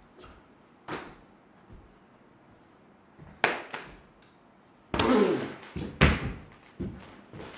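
A body and feet landing on a wooden stage floor as a dancer jumps and falls: several separate thumps and knocks with quiet between them, the loudest from about five to six seconds in.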